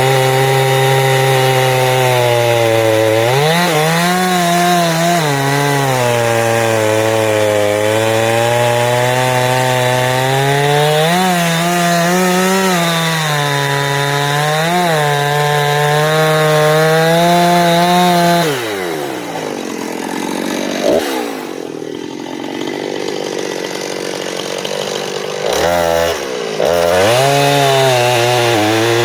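Two-stroke chainsaw running at full throttle while cutting dead ash, its pitch sagging and recovering as the chain bites into the wood. About 18 seconds in it drops to a lower, quieter speed, blips once, then revs back up near the end.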